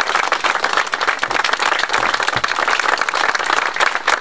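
Crowd applauding steadily, a dense mass of many hands clapping at the close of a speech.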